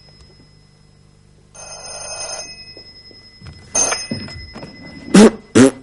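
An old desk telephone's bell rings once for about a second, a second and a half in. The handset then clatters up and a man makes two loud, short vocal noises into the mouthpiece near the end, a childish prank noise into the phone.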